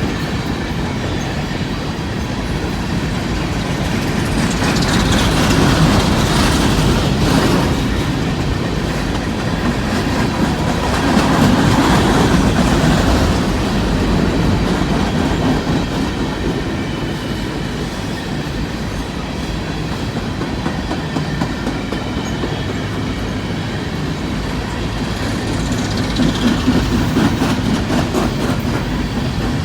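Long empty unit coal train rolling past at speed: a steady rumble and clickety-clack of steel wheels over the rail joints, with a few faint high wheel squeals.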